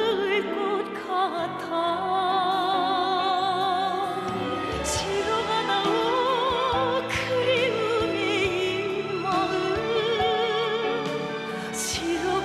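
A Korean song: a solo voice sings with a wide vibrato over instrumental accompaniment.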